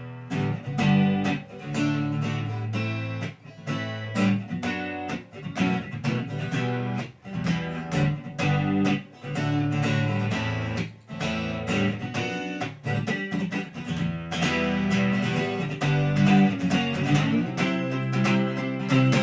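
Guitar strumming chords in a steady rhythm, with no singing: a song's instrumental introduction. The sound gets fuller about three quarters of the way in.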